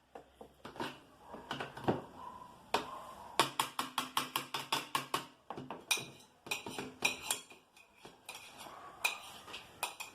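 A spoon tapped and scraped repeatedly against a container to knock off stuck butter, in quick runs of sharp clicks, about five a second.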